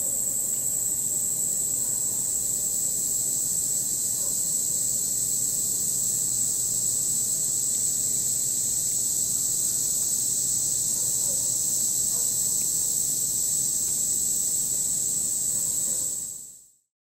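Steady chorus of field insects trilling at one high pitch, unbroken throughout and fading out near the end.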